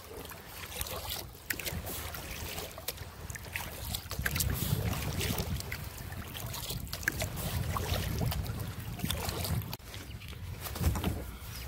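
Kayak paddling: water splashing and dripping from the paddle strokes, with a low wind rumble on the microphone that is strongest in the middle.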